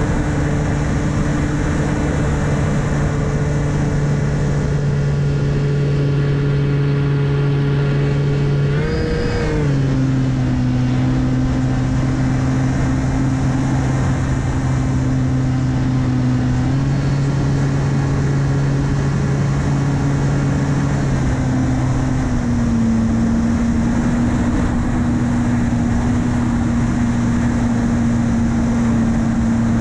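The S800's 2212 1400KV brushless motor and 8x6 APC propeller running in flight, heard from the onboard camera as a steady hum. The pitch rises briefly about nine seconds in and then drops lower, stepping up and down again later with the throttle. Steady wind noise runs underneath.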